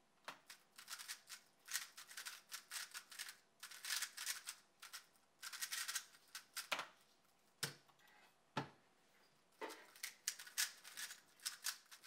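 3x3 Rubik's cube being turned at speed during a speedsolve: rapid flurries of plastic clicks and clacks as the layers snap round, broken by short pauses. A few heavier single knocks come about two thirds of the way through.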